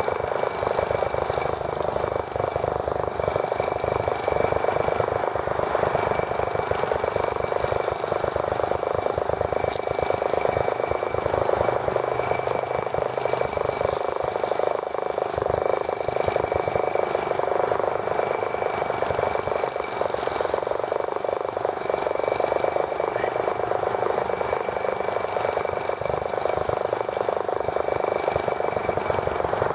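Small gasoline model engine of a toy tractor running steadily, a fast, buzzy stream of firing pulses.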